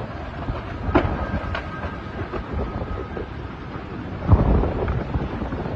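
Hurricane-force wind and driving rain, a heavy rumbling roar buffeting the microphone, with a few sharp knocks. A faint high whistle starts about a second in and runs for about two seconds. A loud low gust hits about four seconds in.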